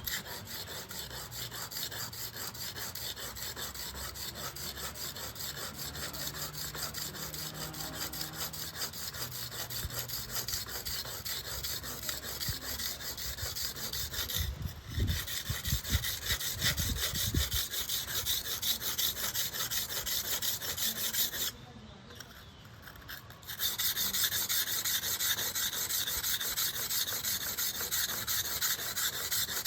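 Steel blade being stroked back and forth on the coarse side of a wet whetstone, a steady rhythmic gritty scraping. The strokes stop for about two seconds around three quarters of the way through, then resume louder.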